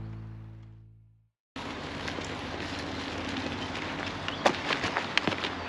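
Background music fades out. After a moment of silence, a cut brings in outdoor noise, a steady crackling hiss with a few sharp clicks near the end.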